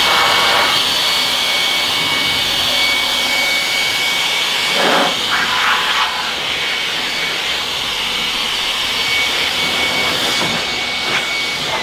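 Handheld corded electric leaf blower (Bulle) running at full speed, a steady high whine over rushing air, blowing water off the wet bonnet of a freshly waxed car. The motor is switched off right at the end and its whine starts to fall.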